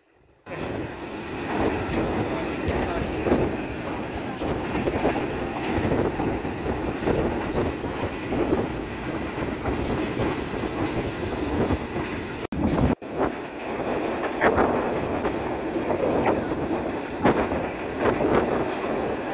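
Green Line Express passenger train running at speed, heard from one of its carriages: a steady rumble and rattle of the wheels on the track, with a few sharper clacks in the last few seconds.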